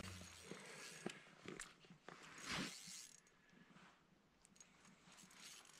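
Near silence, broken by faint rustling and a few light clicks, with one brief louder rustle about two and a half seconds in.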